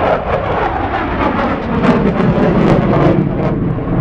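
Aircraft passing low overhead: a loud, rumbling engine roar whose pitch falls as it goes by.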